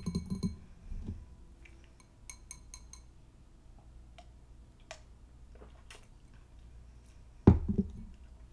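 Light clinking taps on a small hard object, each with a brief ring: a few at the start and a quick cluster of several about two and a half seconds in. A louder low knock comes about seven and a half seconds in.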